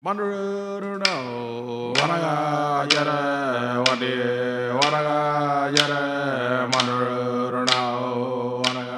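A steady droning chant, one unbroken held tone that drops in pitch about a second in, with a sharp tap keeping time about once a second.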